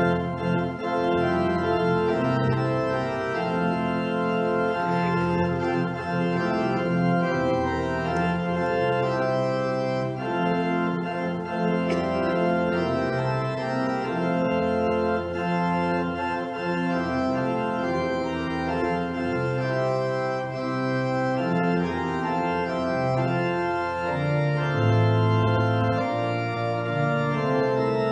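Pipe organ playing a postlude: full, held chords over a bass line that moves in slow steps.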